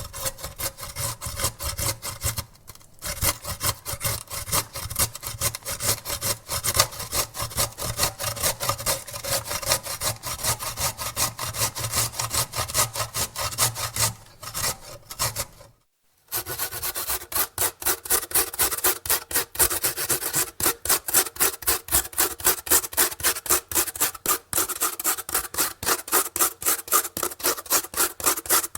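A carrot being grated on a metal grater: quick, repeated rasping strokes. The grating dips briefly a few seconds in and stops altogether for a moment about halfway through, then resumes with faster, more even strokes.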